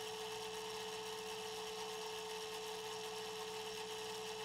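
A steady electronic hum: one constant mid-pitched tone with fainter lower tones and a light hiss, unchanging throughout.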